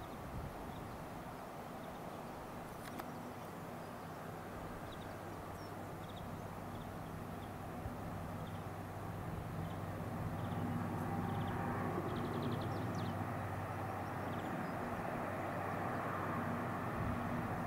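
Diesel engine drone of an approaching Class 57 locomotive (EMD two-stroke V12), a steady low hum that grows louder through the second half. Small birds chirp faintly at the same time.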